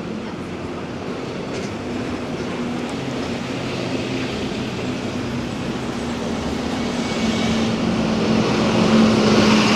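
A vehicle approaching and passing close by, its low hum and hissing noise growing steadily louder, loudest near the end.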